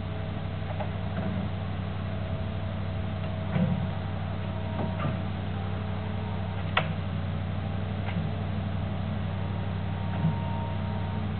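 Diesel engine of a heavy-haulage abnormal-load transporter running with a steady low drone as the load creeps slowly along. A few light clicks sound over it, with one sharp click about seven seconds in.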